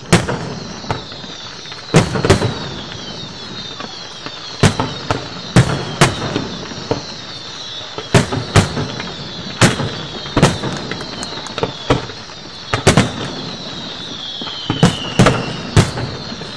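Firework display shells bursting in an irregular run of sharp bangs, one or two a second, over a steady crackle, with many whistles falling in pitch.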